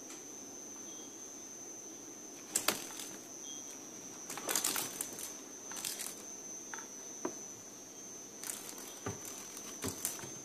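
Five clusters of short scuffling and scratching noises as a cat pounces and paws at a bug on a wooden floor, over a faint, steady high-pitched whine.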